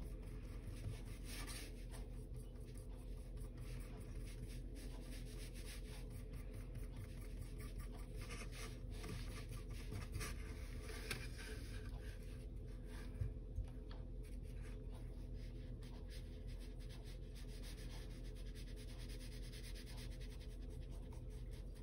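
Small paintbrush rubbing and dabbing acrylic paint onto a wooden canvas panel: faint scratchy strokes over a steady low hum.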